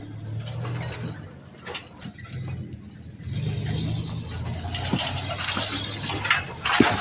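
Engine of a homemade Doodlebug skidder running with a steady low hum, under irregular metallic clanks and ratcheting clicks. A loud sharp clank comes near the end.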